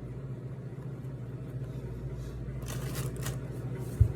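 Eating a chicken burger: a few short rustling, crunching sounds of biting and handling the bun and wrapper, over a steady low hum, with a single low thump near the end.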